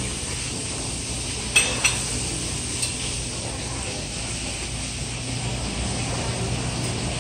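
Buffet restaurant room ambience: a steady hum and hiss, with two sharp clinks about one and a half seconds in and a lighter one a second later.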